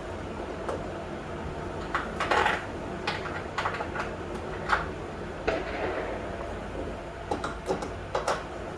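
Irregular metallic clinks and knocks of a wrench and bolts while a Yost bench vise is being bolted down, about a dozen separate strikes, loudest about two and a half seconds in.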